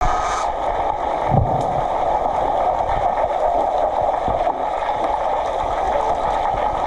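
Underwater noise of a swimming pool heard through a submerged camera: a steady rushing hiss, with a dull low thump about a second and a half in and another a little after four seconds.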